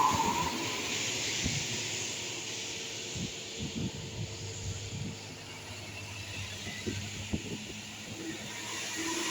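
A large road vehicle passing and moving away: a hiss of tyre and engine noise that fades over the first few seconds, over a low steady engine rumble, with a few short dull thuds.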